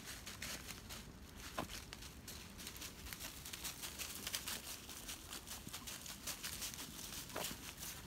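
Footsteps and a dog's paws crunching through dry fallen leaves: a dense scatter of crackles and rustles, busiest around the middle.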